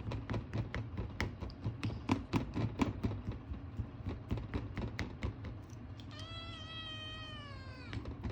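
Ragamuffin kitten meowing for food: one long meow that starts about six seconds in and falls in pitch as it ends. Before it come several seconds of irregular light taps and clicks.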